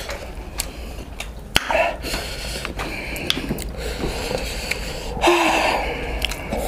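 Close-up eating sounds: two people chewing and picking food from plates with their hands, with scattered small clicks and taps and a brief louder noise about five seconds in.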